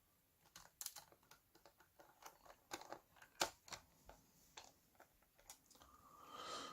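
Faint, irregular small clicks and taps of a laptop's bottom cover being handled and pressed into place on the chassis.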